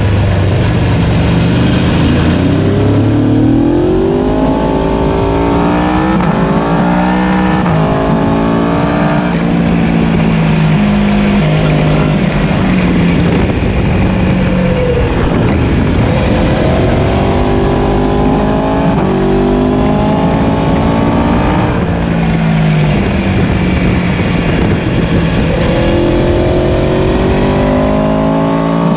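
Aprilia Tuono sport-bike engines under hard acceleration, the revs climbing and stepping with each gear change, in three runs. Heavy wind and road noise on the bike-mounted microphone.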